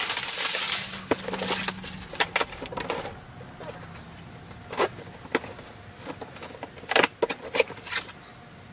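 Plastic shrink-wrap being cut and torn off a cardboard box, a crinkly rustle for the first three seconds or so. Then the cardboard flaps are pulled open and the contents handled, quieter, with a few sharp clicks and knocks.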